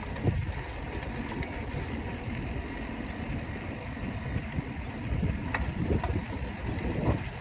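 Wind buffeting a phone's microphone on a moving bicycle, a gusty low rumble mixed with tyre and road noise.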